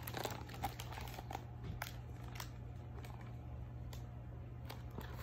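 Faint handling sounds of a picture book being held up and shown: a few small clicks and light rustles, over a steady low hum.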